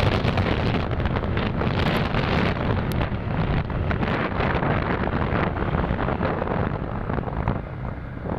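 Wind buffeting the microphone of a moving motorcycle, with road and engine noise underneath; it eases off a little near the end.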